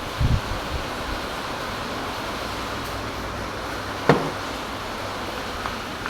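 Heavy rain falling, a steady hiss, with a single sharp knock about four seconds in.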